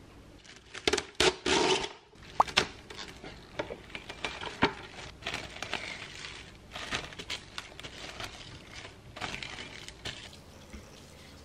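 Plastic cling film crinkling and crackling in irregular bursts as it is stretched over a glass mixing bowl. It is loudest in the first two seconds, with scattered clicks and light taps after.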